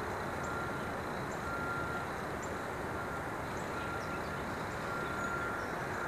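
Steady outdoor street ambience: an even rumble and hiss with no distinct events, a faint on-and-off steady tone, and scattered faint high chirps.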